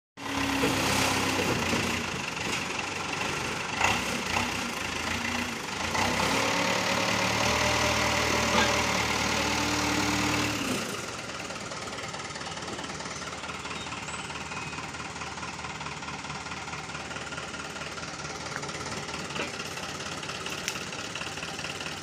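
Backhoe loader's engine running at higher revs, its pitch rising and falling, for about the first eleven seconds, then dropping suddenly to a steady idle.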